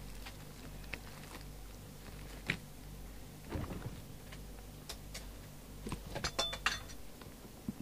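Scattered faint clicks and light knocks of a CB radio base station being handled and shifted on a workbench, with a quick cluster of clicks near the end, over a low steady hum.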